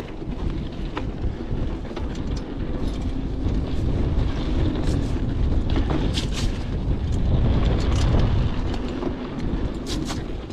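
Wind buffeting the microphone while a Huffy Good Vibrations klunker rolls down a wet dirt trail: a continuous low rumble of tyres and wind, with scattered clicks and knocks over the bumps.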